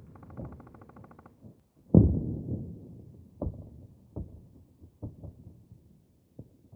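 Distant war explosions. A heavy boom about two seconds in rumbles away, followed by a string of fainter, shorter booms. A short fast rattle comes just before it at the start.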